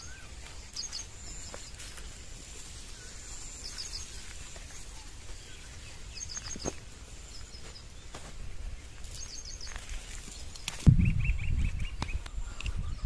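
Small birds calling outdoors: short groups of quick high chirps every few seconds over a faint background hiss. About eleven seconds in, a louder, irregular low rumble starts suddenly, with a run of lower, repeated chirps over it.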